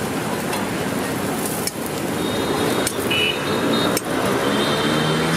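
Slotted metal spatula tapping and scraping on a flat iron griddle as a flatbread is pressed and turned, a few sharp clicks over steady street noise.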